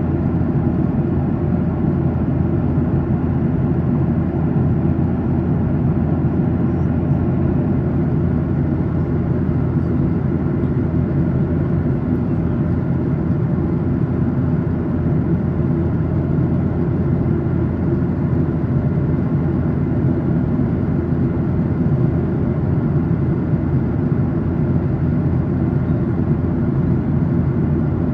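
Steady cabin drone of a Boeing 737-800 in cruise flight: its CFM56-7B engines and the airflow over the fuselage, heard from inside the cabin as an even, deep rumble with a faint hum of steady tones.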